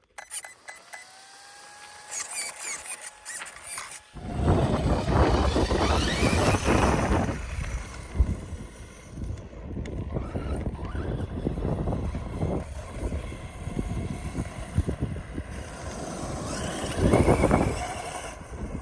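DHK Maximus 1/8-scale RC truck's brushless motor whining up as the truck takes off and runs over loose dirt, rising in pitch several times. It is heavily mixed with wind buffeting the microphone. It gets loud about four seconds in and surges again near the end.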